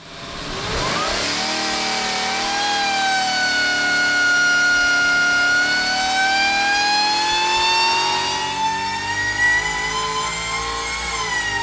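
Supercharged 6.6-litre GM L8T V8 with a Harrop TVS2650 top-mount supercharger, under full load on an engine dyno. The engine revs up quickly about a second in, then holds high, around 6,000 rpm, with its pitch slowly rising, and drops away near the end.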